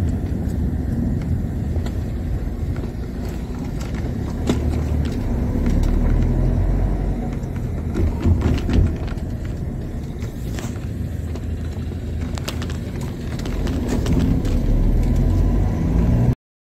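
Steady low rumble of a moving vehicle in motion, with a few scattered clicks and knocks; it cuts off suddenly just before the end.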